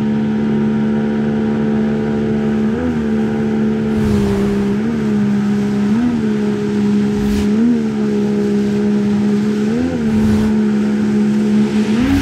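Jet-drive outboard motor pushing an inflatable boat up through rapids at steady high revs, its pitch lifting briefly every second or two, over the rush of white water.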